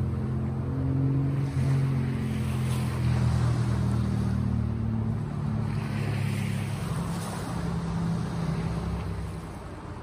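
Sea waves breaking and washing in, swelling and ebbing, with a low steady motor hum underneath that fades out near the end.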